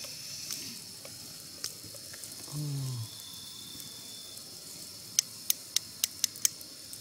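Steady high-pitched drone of insects, with a short voice-like sound about halfway through and a quick run of six sharp clicks or taps near the end.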